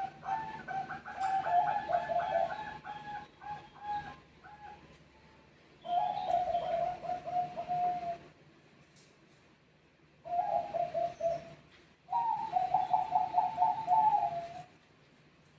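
Zebra doves (Bangkok perkutut) answering each other with rapid, rolling coo phrases. One long phrase runs through the first four seconds, then three shorter bouts follow with pauses of one to two seconds between them.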